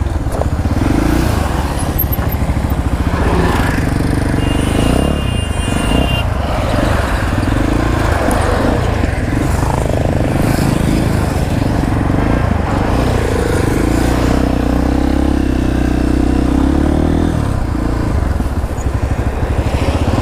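Street traffic with motorcycle engines running, a steady low rumble; one engine note stands out for a few seconds past the middle.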